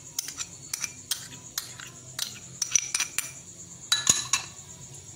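Sharp clinks and taps of a glass bowl and utensil against a ceramic mixing bowl as yogurt is tipped and scraped in, irregular and scattered, with a quick cluster about four seconds in.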